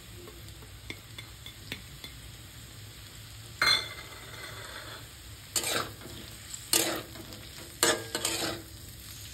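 Potatoes and chopped spring onions frying in oil with a low steady sizzle. About three and a half seconds in, a metal spatula starts stirring and scraping against the pan in four strokes about a second apart.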